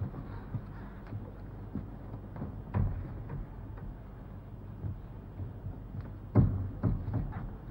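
Scattered knocks and clicks, the loudest about three seconds in and a quick cluster near the end, over a steady low hum.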